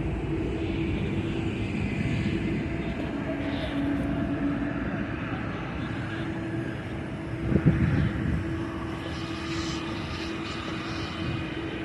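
Jet airliner engines running steadily as the aircraft moves along the runway, a continuous rumble with a steady whine. A single short thump about two-thirds of the way through is the loudest moment.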